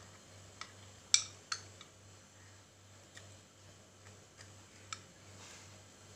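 A kitchen knife clicking against a ceramic plate while seeds are picked out of a halved orange: about seven short, sharp clicks at uneven intervals, the loudest about a second in. A faint steady low hum runs underneath.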